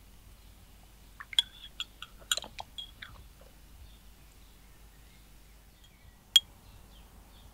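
Light clinks and taps of utensils against dishes: a quick run of them, then one sharper clink about six seconds in.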